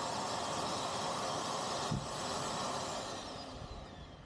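Vacuum cleaner running with a steady rush of air and a high motor whine, its suction free again after clearing a jam in the hose. About three seconds in the whine falls in pitch and the noise fades as the motor winds down.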